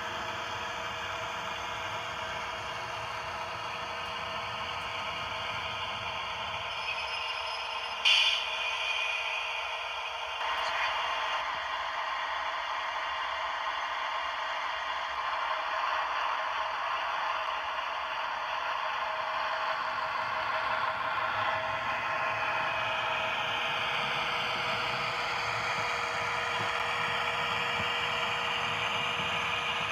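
Model freight train running on a layout: the steady whir of a model locomotive with its wagons rattling along the track, and one brief sharp clank about eight seconds in.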